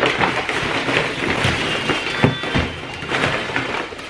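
Brown paper bag crinkling and rustling as it is pulled open and shaken out, with a couple of dull thumps a little over two seconds in as steamed crabs tumble out onto the paper-covered table.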